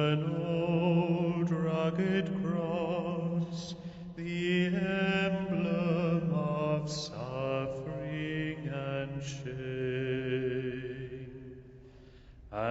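A single voice singing a slow hymn with marked vibrato over a steady, sustained low accompaniment. The phrase dies away shortly before the end, and the next phrase begins.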